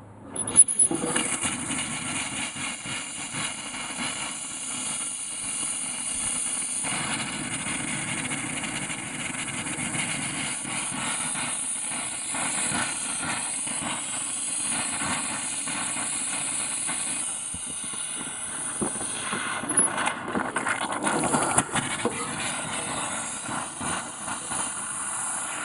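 Compressed air blowing out an RV's water lines, a steady loud rush of air hissing out of an open faucet, turning sputtery with uneven spurts in the last few seconds as water is pushed out of the line.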